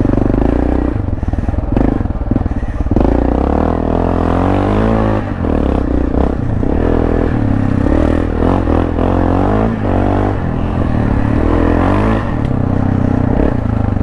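2012 Yamaha XT660R's 660 cc single-cylinder four-stroke engine, breathing through an Akrapovič titanium exhaust, revving up and falling back again and again as the bike is ridden on a rough dirt trail. It is geared down with a 14-tooth front sprocket for more low-rev pull.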